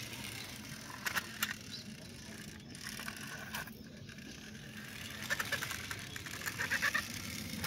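Plastic toy auto-rickshaw being pushed by hand across concrete: its small wheels roll and scrape with a steady rumble. There are a couple of sharp clicks just after a second in and a run of quick clicks near the end.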